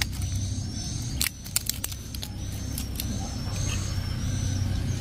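A few sharp plastic clicks from a toy train's battery holder being handled while batteries are fitted, about one to two seconds in, over a steady low hum.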